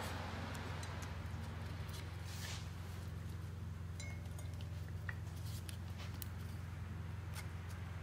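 Faint clicks and light clinks as a rubber timing belt is worked by hand onto the engine's toothed pulleys, over a steady low hum.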